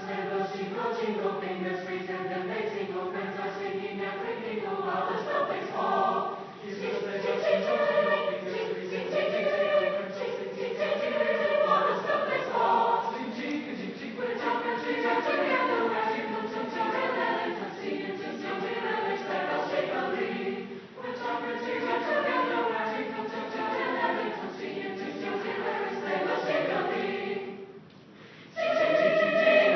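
A chorale of many voices singing in several parts. Near the end the singing breaks off for a moment and comes back louder.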